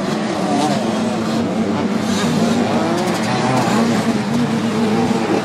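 Several 125 cc two-stroke motocross bikes racing, their engines revving up and down and overlapping as they come over a jump and down the hill.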